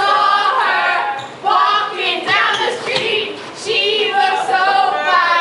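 A woman singing a pop song unaccompanied, loud and close, in short phrases with brief breaks and some notes held.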